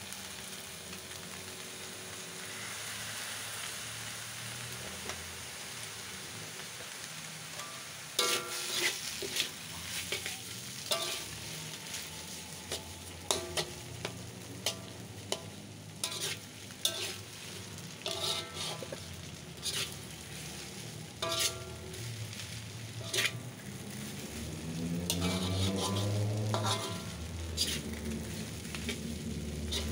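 Mee goreng noodles sizzling in a hot wok as a long metal turner stirs and tosses them. About eight seconds in, repeated sharp clacks and scrapes of the turner against the wok begin and continue.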